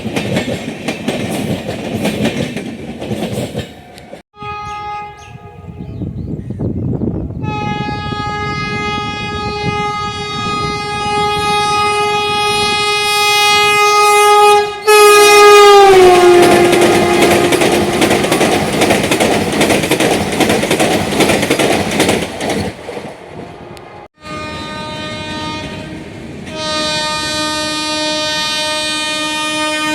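Passing Indian Railways trains: wheels clattering over the rail joints and locomotive horns blowing long blasts. One long horn slides down in pitch about halfway through as the train goes by, and a second horn starts near the end.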